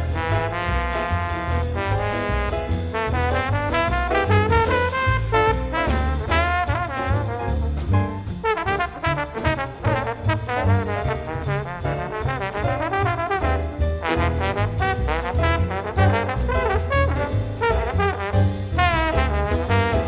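Slide trombone solo in a jazz big band, playing fast runs and glides in pitch over a rhythm section of piano, bass and drums keeping a steady beat.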